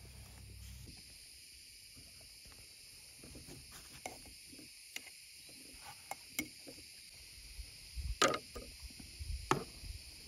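Light clicks and taps as olives are tipped from a glass jar onto a wooden cutting board, with two louder knocks near the end. A steady high chirring of insects runs underneath.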